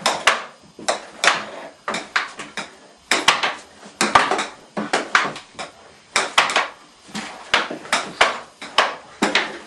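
Dishes and cutlery clinking and clattering, a steady run of sharp knocks coming one or two groups a second.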